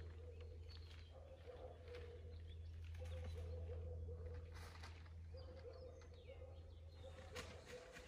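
Faint birdsong: a low cooing call repeating again and again, with scattered small-bird chirps, over a steady low rumble.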